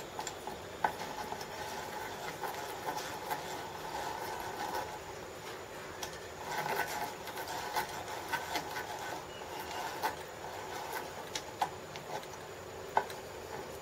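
Electric hand drill running, drilling a pilot hole in the clamped workpiece, in two spells of a few seconds with a short pause between and a few sharp clicks.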